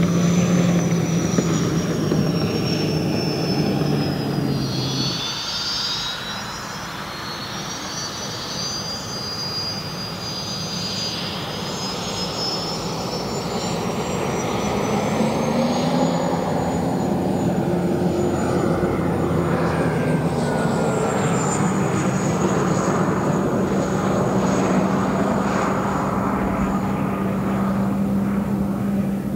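Unlimited hydroplane's turbine engine running, a high whine that falls over the first few seconds, then rises and holds high. Under it is a steady low hum that drops away about five seconds in and comes back in the second half.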